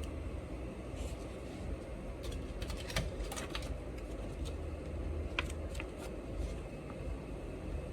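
Scattered light clicks and taps of small repair tools on a Google Pixel XL phone, with a quick cluster of clicks in the middle, over a steady low hum.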